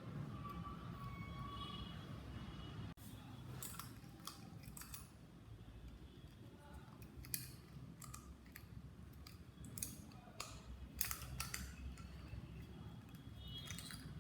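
Scattered small clicks and scrapes of a small screwdriver prying at the plastic cap and hinge parts of a headphone ear cup, over a low steady hum.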